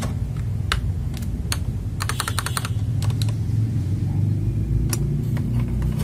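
Keys of an FL Esports MK870 mechanical keyboard clacking as they are pressed: scattered single clicks, with a quick run of several presses about two seconds in. A steady low hum sits underneath.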